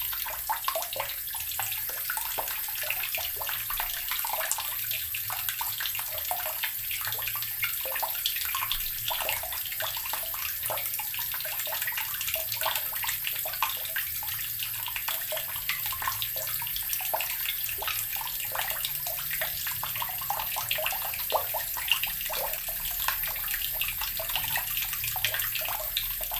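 Water running steadily from a tap, a constant splashing hiss dotted with small splashes.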